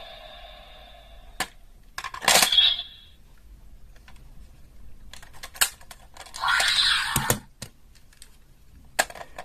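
Hard plastic clicks and clatter from handling DX Kamen Rider Saber toys, taking Wonder Ride Books out of the holder and swapping them. There are a few sharp single snaps, with short rattling bursts about two seconds in and again around six to seven seconds in.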